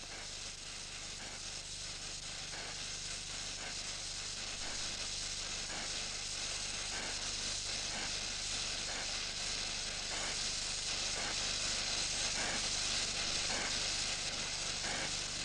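Oxyacetylene torch flame hissing steadily during braze welding of a copper pipe joint with brass filler rod, growing slowly louder.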